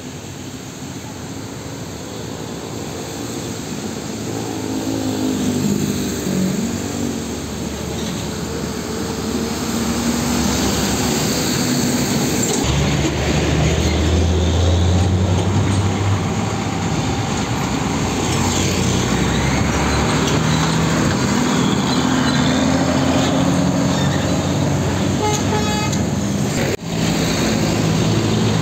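Heavy diesel trucks, an old Mercedes-Benz and a Volvo tractor unit, running close by as they pull across a level crossing, with a deep engine rumble loudest in the middle, amid road traffic and a vehicle horn tooting.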